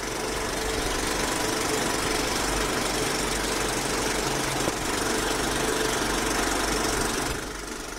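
A steady mechanical running noise that fades out near the end.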